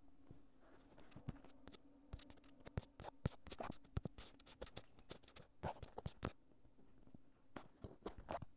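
Handling noise: many irregular scratches and sharp knocks as the recording phone is moved and rubbed about. A faint steady low hum runs underneath.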